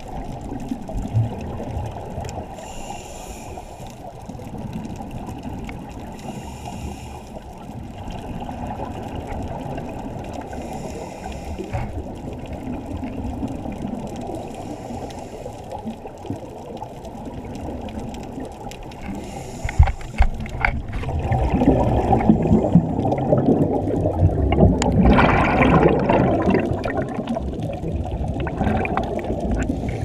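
Muffled underwater noise heard through a GoPro housing during a scuba dive, with short hissing bursts of regulator exhaust bubbles every few seconds. About two-thirds of the way in, the water noise and bubbling grow louder.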